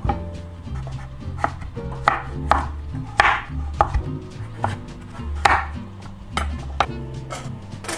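Chef's knife chopping peeled acorn squash into chunks on a wooden cutting board: a dozen or so irregular sharp knocks of the blade on the board, a few with a longer slicing sound through the firm flesh.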